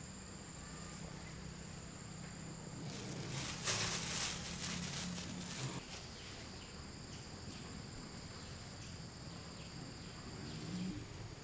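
Insects chirring steadily in high, continuous tones. A brief rustling noise, the loudest sound, comes about three and a half seconds in.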